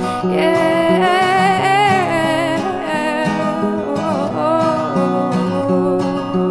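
Background music: a song with acoustic guitar and singing.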